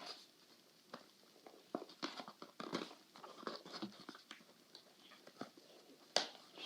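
Faint, irregular clicks and rustles of hands handling a small puzzle-cube box and its packaging while trying to open it.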